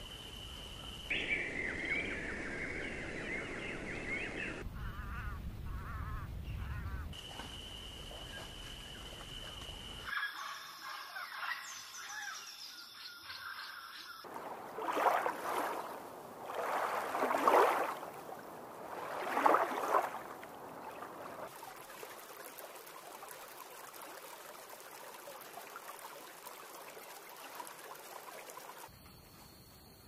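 Wild birds chirping and calling over outdoor background noise, the sound changing abruptly with each scene. Between about 15 and 20 seconds in, three loud, drawn-out calls stand out, from African penguins.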